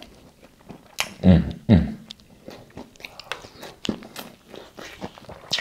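Close-up chewing and biting of a soft shrimp and fish taco, with wet mouth clicks and smacks scattered throughout. About a second and a half in come two short hummed sounds from the eater, the loudest part.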